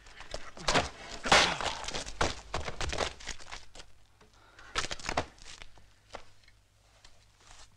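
Scuffling of two men in a fistfight: a quick run of thuds, scrapes and clothing rustle, loudest about a second in, then a short burst of scuffling near the middle and a quieter end.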